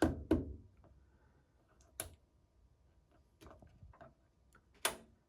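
Sharp mechanical clicks of an oscilloscope's front-panel rotary knobs and switches being turned through their detents, a few at a time, the loudest about two seconds in and just before the end.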